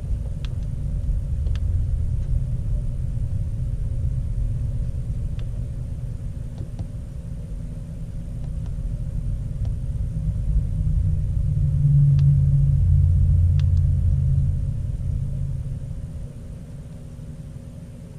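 Low rumble that swells about ten seconds in and dies away near the end, with a few faint clicks.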